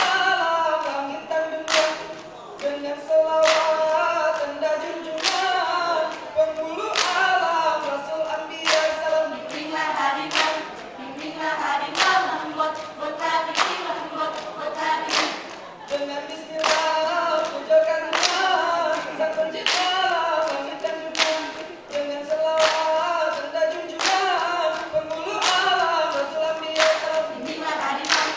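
Group of seated Rampai Aceh dancers singing a chant together without instruments. Sharp hand claps land in time with the song, about once a second.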